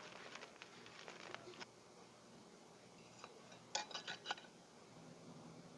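Light metal clicks and taps of kitchen utensils handled at a cast iron skillet: scattered soft ticks at first, then a quick cluster of sharper, slightly ringing clinks about three and a half to four and a half seconds in.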